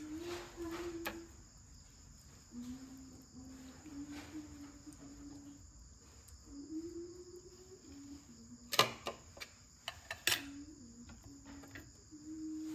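Crickets chirring steadily in a continuous high-pitched chorus. A faint low wavering tone comes and goes under it, and two sharp knocks stand out about three-quarters of the way through.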